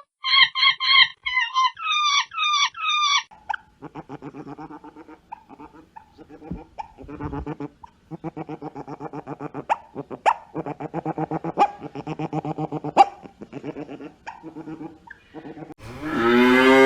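A run of animal calls: short, high, wavering cries, then a long stretch of quick, rhythmic, low pulsed calls, and a cow starting to moo loudly near the end.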